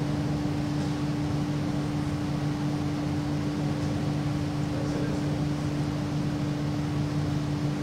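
A steady hum: one constant tone over a lower drone and an even hiss, unchanging throughout.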